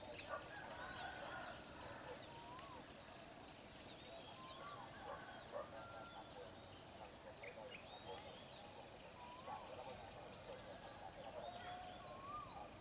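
Wild birds in a forest chorus, many short rising-and-falling whistles and chirps overlapping, over a steady high insect buzz.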